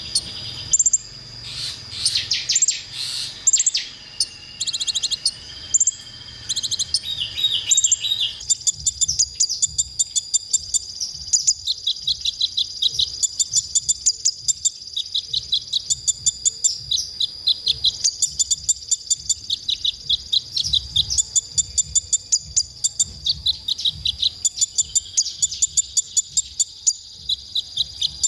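Sunbird singing: a run of fast, high twittering trills, then from about eight seconds in a long series of quick high chirps, several a second. A constant thin high tone runs underneath.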